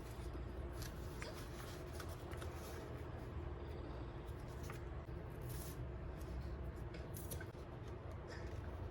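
Journal-making sounds: paper and stationery being handled, with short rustles and clicks scattered over a low steady hum.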